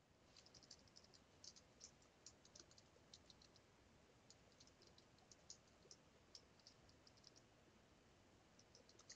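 Faint typing on a computer keyboard: quick, irregular key clicks, busiest in the first three seconds and thinning out towards the end.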